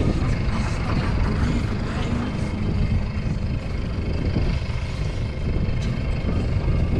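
Steady low rumble of a small fishing boat at sea, engine and wind noise together, with no distinct events.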